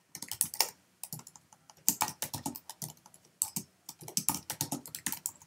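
Typing on a computer keyboard: quick runs of key clicks, broken by a few brief pauses.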